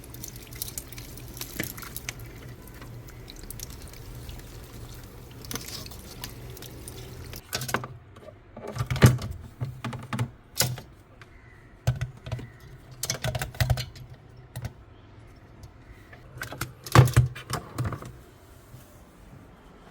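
Irregular clicks, knocks and scraping from hands working inside an iced-up fridge compartment, over a steady low hum. The ice build-up comes from a failed defrost heater.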